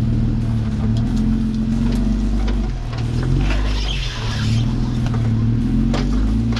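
Lifted Jeep Wrangler's engine running at low revs as it crawls over rocks, its pitch rising and falling a little, with occasional light knocks. A brief hiss comes in about three and a half seconds in.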